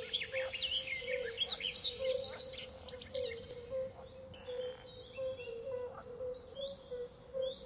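Birds chirping: many short, quick high chirps, busy at first, then sparser and quieter after about three seconds, over a steady low drone.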